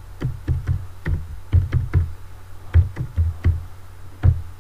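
Computer keyboard typing: irregular keystroke clicks, each with a dull low thud, with a short pause partway through.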